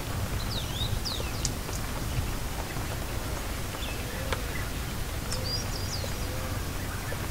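Steady rain ambience with birds chirping: a few quick falling chirps about half a second in and a short twittering run about five seconds in, with an occasional sharp tick.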